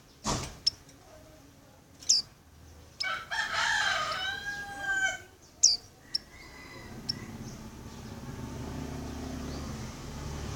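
Female white-eye (pleci) giving short, sharp high chirps, twice, as a call to a male, while a rooster crows in the background for about two seconds between them. A low rumble builds up from a little past the middle.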